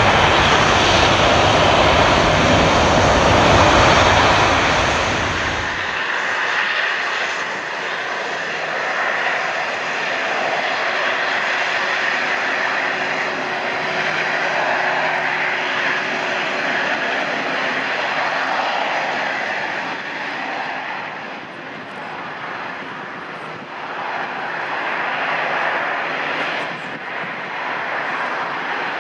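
Antonov An-70's four Progress D-27 propfan engines, with contra-rotating propellers, running loud and steady while the aircraft taxis. About six seconds in the deep rumble drops away abruptly, and the sound goes on lighter, dipping and swelling near the end.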